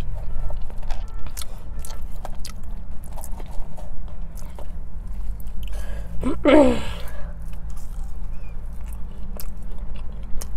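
Close-up chewing and biting of french fries, with many small crisp crunches, and a short vocal sound about six and a half seconds in.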